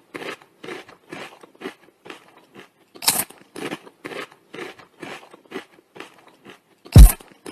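A rapid run of short, sharp clicks, about three or four a second. About seven seconds in, much louder deep bass hits with a falling pitch cut in as music starts.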